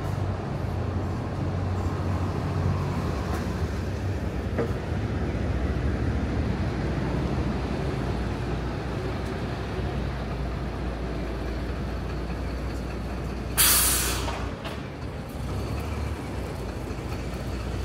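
Street traffic with a heavy vehicle's engine running steadily at low speed, and one short, loud hiss of air brakes about fourteen seconds in, typical of a city bus stopping.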